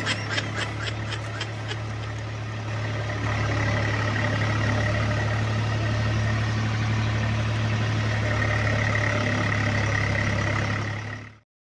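Tractor-driven threshing machine running steadily under load: a deep, even engine drone with a high whine from the spinning thresher drum and fan. It cuts off suddenly near the end.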